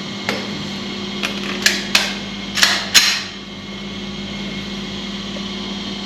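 Six sharp cracks and clicks from handguns at a shooting range, spread over about three seconds, the last two the loudest. After them only a steady hum remains.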